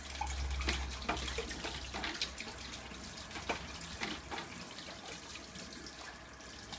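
Irregular drips and small splashes of water in a stainless-steel kitchen sink, over a low steady hum.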